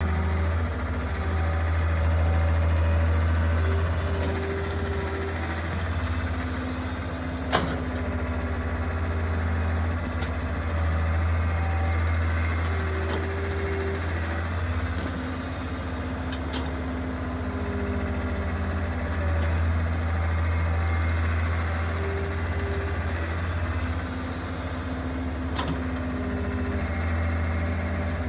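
Hitachi EX100-1 wheeled excavator's diesel engine running steadily under working load while the arm digs and dumps soil, with a higher whine that comes and goes. A sharp clank about seven seconds in, and a smaller one near the end.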